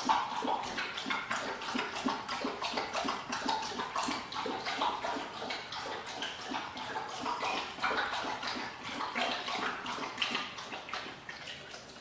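Tiger cub licking and lapping at the tile floor: a quick, irregular run of wet clicks that tails off near the end.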